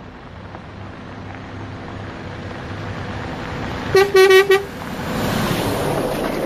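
Concorde motorhome on a Mercedes chassis driving over gravel toward the camera, its engine and tyre noise growing louder. About four seconds in it gives a quick series of short horn toots, then rumbles right overhead as it passes over the camera.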